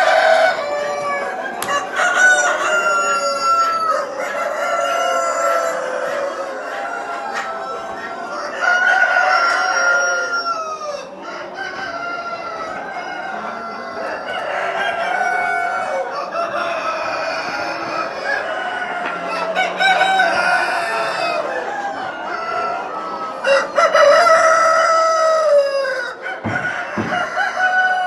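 A flock of four-month-old Kuroiler chickens: several young cockerels crowing, their long calls overlapping, with clucking among them.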